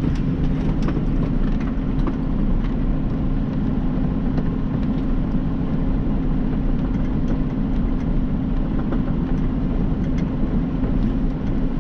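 Freightliner Cascadia semi-truck's engine and road noise heard from inside the cab while driving, a steady low drone.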